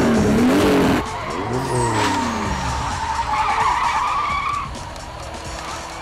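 Tuned street-race car engines revving hard, their pitch swinging up and down until a sudden cut about a second in, then another rev that falls away. A long high squeal follows and fades near the end.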